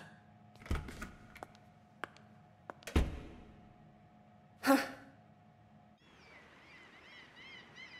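Quiet indoor room tone with a faint steady hum, two soft thumps and a few light clicks, then a short sigh. After a cut, small birds chirp faintly and repeatedly over an outdoor hush.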